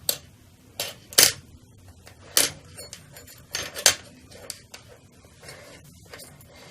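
A handful of short, sharp taps and clicks at irregular intervals, the loudest a little over a second in and again near four seconds.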